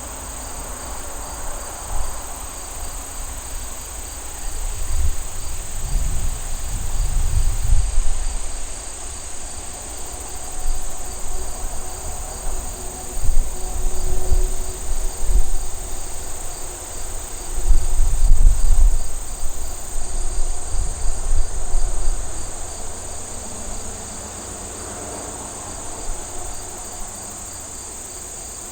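Steady high-pitched insect chorus, a continuous trill with a regular pulsing chirp beneath it. Intermittent low rumbles swell up several times and are the loudest sounds.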